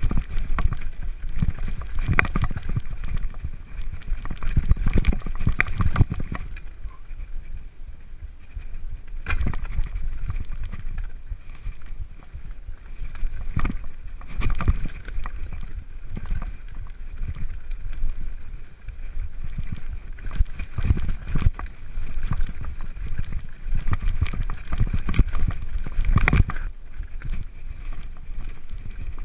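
Mountain bike descending a rocky trail: tyres crunching over stones with irregular knocks and rattles from the frame, chain and suspension as it hits rocks, over a constant low rumble.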